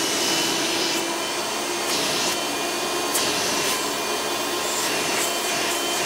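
Hoover Elite upright vacuum's direct-air motor running steadily in tool mode, drawing air through the hose. Short rushes of air come now and then.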